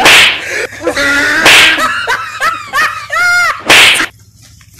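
Three loud, sharp slaps, one at the very start, one about a second and a half in and one near the end. A voice yells and cries out between them.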